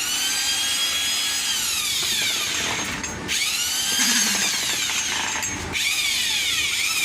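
Small electric concrete vibrator's motor running with a high-pitched whine. The tool is stopped and restarted twice: each time the pitch drops as it slows and climbs again as it spins back up.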